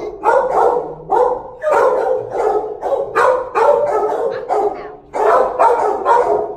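Kennelled shelter dogs barking, a steady run of short barks about three a second.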